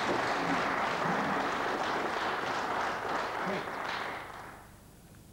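Snooker audience applauding in the hall, a dense clapping that fades away about four and a half seconds in.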